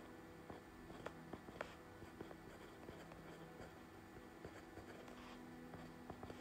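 Near silence: faint room tone with a few steady low tones and a handful of light clicks.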